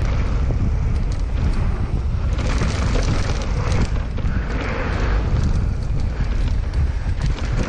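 Mountain bike riding down a dirt trail: wind buffeting the microphone over the rattle and clatter of tyres and bike on rough ground.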